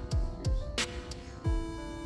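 Background music with a steady electronic beat: a deep kick drum about every two-thirds of a second under sustained synth notes.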